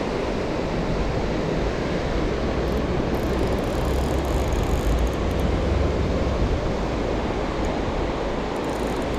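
Wind buffeting the microphone: a steady rushing noise with a low, fluctuating rumble.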